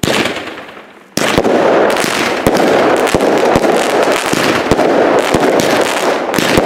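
Consumer firework cake going off. A sudden burst at the start fades over about a second. Then comes a steady dense crackle of crackling stars, cut by sharp launch reports about twice a second.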